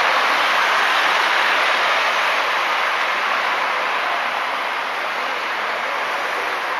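Steady road traffic: cars passing close by in a single lane, a continuous hiss of tyres and engines that eases off slowly.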